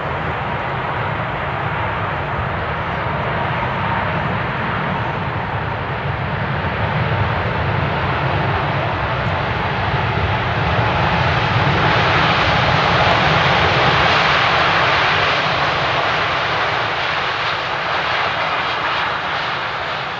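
Emirates Airbus A380-861's Engine Alliance GP7200 turbofans running in reverse thrust on the landing rollout on a wet runway: a loud, steady jet rush with a faint whine that slowly falls in the first half, building to its loudest about two-thirds through, then easing off.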